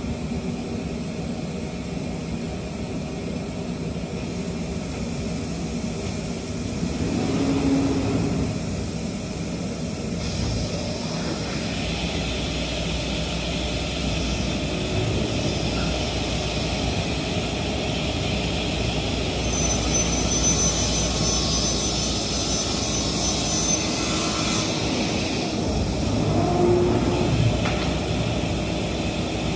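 Industrial shop machinery running with a steady noise. From about ten seconds in a louder hiss and deeper rumble build up, with a thin high whine from about twenty to twenty-four seconds, then it settles back near the end.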